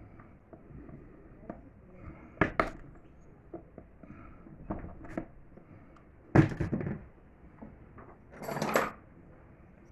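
Objects being handled: a few sharp knocks and clatters, the loudest about six and a half seconds in, and a short scraping rustle near the end.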